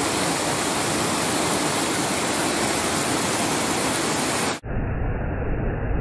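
Waterfall rushing, a steady full hiss of falling water. About four and a half seconds in it cuts abruptly to a muffled, duller rush of water with a heavy low rumble.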